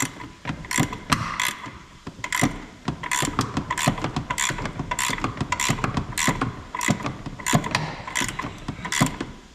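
Ratcheting wrench clicking in quick, irregular runs of strokes as it works a front shock's mounting nut loose.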